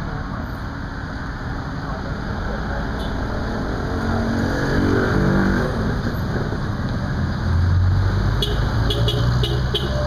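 Street traffic on the road alongside: cars and motorbikes passing with a steady wash of engine and tyre noise. An engine passes close near the middle, and a deeper engine rumble swells in the last two seconds or so.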